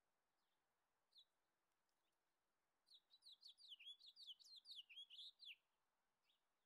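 Faint songbird song: a single chirp about a second in, then a quick run of rapid downward-sweeping notes lasting about two and a half seconds, and one more faint chirp near the end, over faint hiss.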